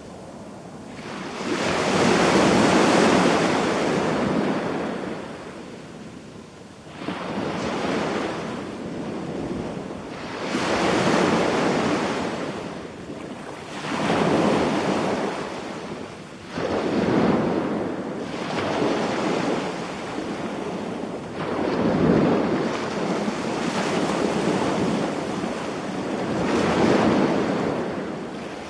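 Small waves breaking on a sandy beach shore, surging in and washing back every few seconds.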